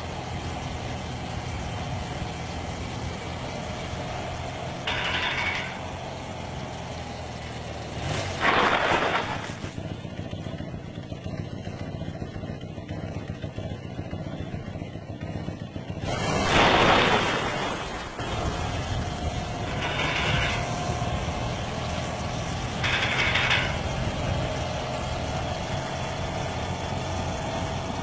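Motorcycle engine running steadily, with several brief louder noisy swells, the biggest about a third of the way in and again past halfway.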